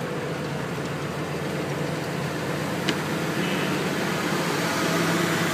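Semi truck's diesel engine running steadily as the truck reverses slowly, heard from inside the cab, getting a little louder near the end. A single sharp click comes about three seconds in.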